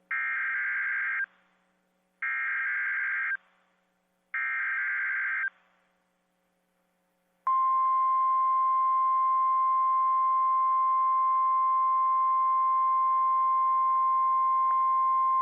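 Emergency Alert System SAME header on NOAA Weather Radio: three short bursts of chirping data tones about two seconds apart, then, after a pause, the louder steady single-pitch 1050 Hz weather radio alert tone starting about seven seconds in, announcing a new warning.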